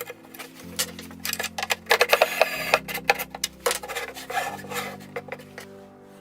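Irregular rasping, scraping and clicking, busiest in the middle stretch, over background music with sustained low chords that change every second or two.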